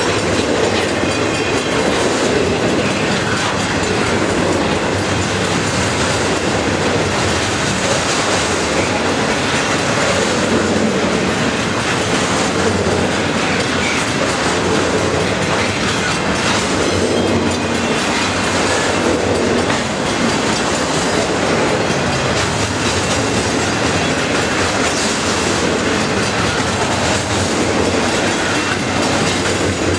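Double-stack intermodal freight cars rolling past at speed: a steady loud rumble and clatter of steel wheels on rail.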